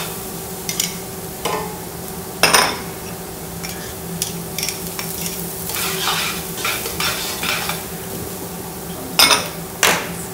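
Shallots, garlic and chilli sizzling in hot olive oil in a frying pan on an induction cooktop, stirred with a utensil that clicks and scrapes against the pan. A few louder knocks stand out, one about two and a half seconds in and two close together near the end.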